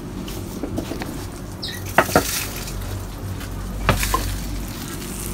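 Hot salt-crusted pork belly sizzling steadily in a makeshift biscuit-tin oven while the metal tin and pan are handled, with a few sharp clanks, two about two seconds in and two more about four seconds in.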